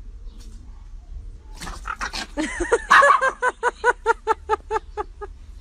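Dog barking in a rapid string of short, high yaps, about six a second, as it play-fights. The yapping starts about a second and a half in and stops shortly before the end.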